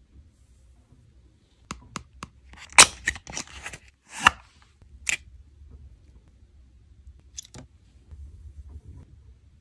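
An eyeshadow palette handled and slid against its cardboard sleeve: a few light clicks, then a cluster of short scraping, rustling sounds from about three to five seconds in, and two fainter clicks near the end.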